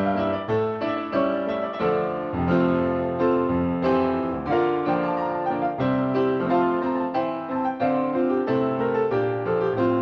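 Piano playing accompaniment for a ballet barre exercise: chords and melody in a steady, even pulse.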